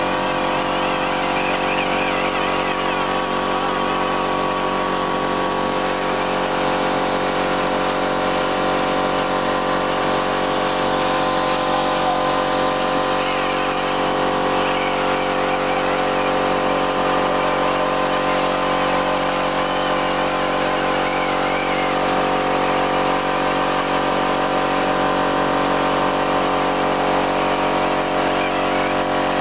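Air-powered polisher with a foam pad running steadily on a motorcycle's painted fairing: a constant mechanical whine made of several steady tones, with no change in speed.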